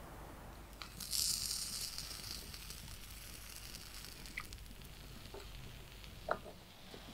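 A brief sizzle about a second in, fading away over a second or so, followed by a few light clicks and taps.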